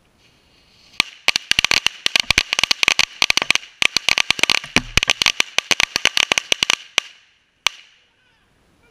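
A pack of World Class Fireworks Class Crackers firecrackers going off after a short fizz of the fuse: about six seconds of rapid, overlapping bangs, then one last bang near the end.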